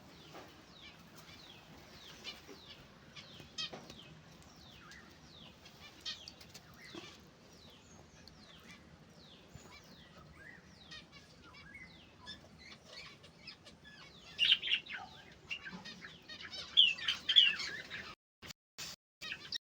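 Small pet finches chirping: many short, high, falling calls scattered throughout, busier and louder about two-thirds of the way in. Near the end the sound cuts out in several short gaps.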